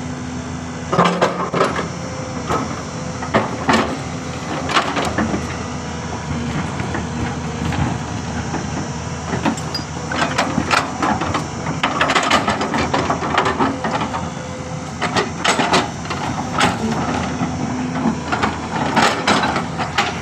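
Hyundai R210 Smart Plus crawler excavator working: its diesel engine runs steadily under irregular metallic clanks and knocks.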